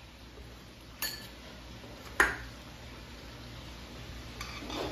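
Two sharp clinks about a second apart, the second louder, as the lid of an Oster blender's glass jar is set down on a tiled counter and a metal spoon goes into the jar, then softer spoon clinks against the glass near the end.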